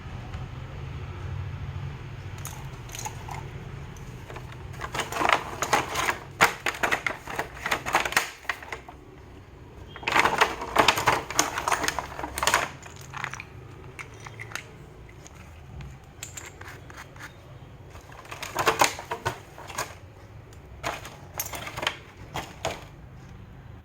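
Makeup kit packaging and cases being handled and opened: quick runs of sharp clicks, taps and rustling in four bursts of a second or more each, with a steady low hum beneath.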